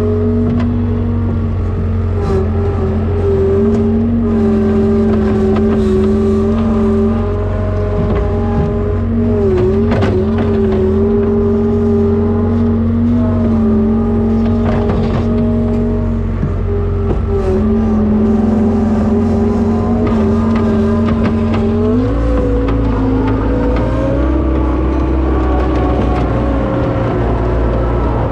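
Skid steer's diesel engine running steadily under load, its pitch rising and wavering about two-thirds of the way through as it revs up. A few short knocks sound over it.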